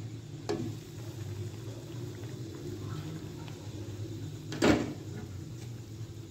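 Pan of water with broccoli, potato and onion simmering on the stove, a steady low bubbling. A single short knock comes about four and a half seconds in.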